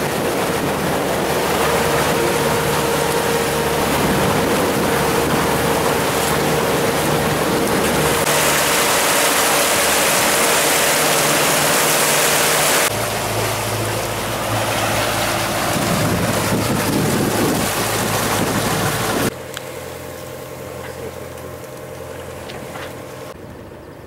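Sailboat under way: water rushing and splashing along the hull and wake, with wind on the microphone and a steady low drone beneath. The sound drops much quieter about 19 seconds in.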